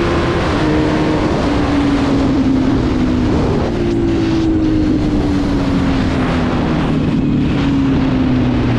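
Yamaha R1 998 cc inline-four engine in a Raptor quad, heard from the rider's seat as it runs on the road. The engine note falls in small steps at first, rises sharply about four seconds in, then sinks slowly as the revs drop, with wind rushing over the microphone.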